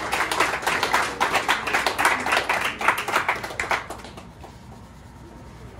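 A small group of people clapping, the applause dying away about four seconds in.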